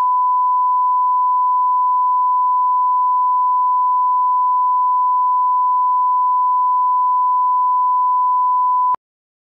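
Broadcast line-up test tone played with SMPTE colour bars: one steady pure tone, held at a constant pitch and level, cutting off abruptly about nine seconds in.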